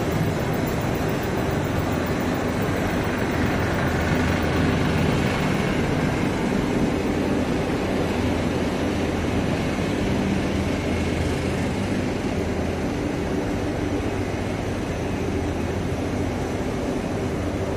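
Steady machinery noise of a PVC coil door mat production line running, a constant din with a low hum underneath.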